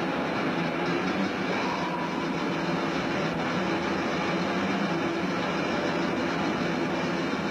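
A metal band playing live with guitars and drums, heard through a heavily overloaded recording as a dense, steady wall of noise with no clear notes.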